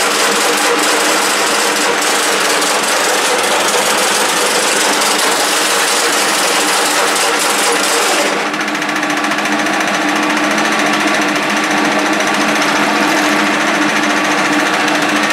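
1K62 screw-cutting lathe running, a steady machine hum with a constant gear whine. About eight seconds in, a loud high hiss cuts off suddenly and the lathe runs on with less hiss.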